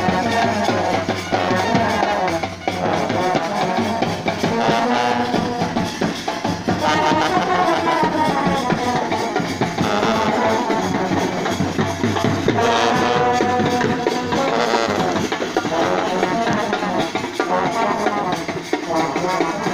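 Indian wedding brass band playing: brass horns, including a sousaphone, over drums.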